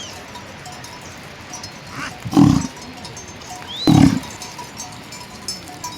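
A farm animal giving two short, low calls about a second and a half apart, with a few high bird chirps around them.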